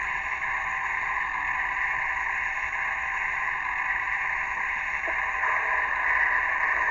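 A train's horn sounding one long, steady blast.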